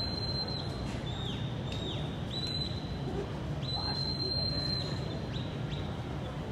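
Sheepdog handler's whistle commands: a string of high, clear whistled notes, some held for about a second, others short and falling off at the end. The whistles sound over a steady murmur of arena crowd noise.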